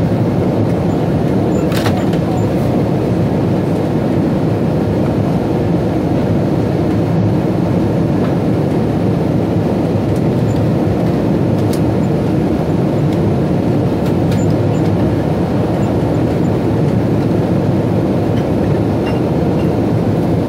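Steady airliner cabin noise inside a Boeing 777-200ER in flight: a deep, even rush of engine and airflow noise, with a few faint clicks now and then.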